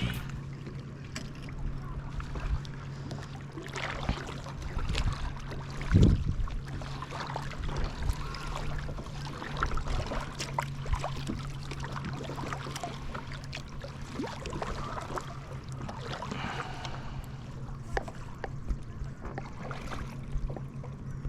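Kayak paddling: the paddle blades dip and splash in the water with scattered drips and small knocks, a louder knock about six seconds in, over a steady low hum.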